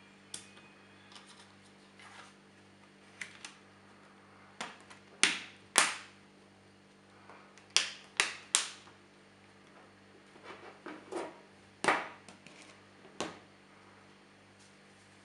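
Sharp plastic clicks as a Samsung smartphone's snap-on back cover is pressed into place around its edges, the clip tabs snapping home. There are over a dozen clicks, the loudest coming in quick runs of two or three.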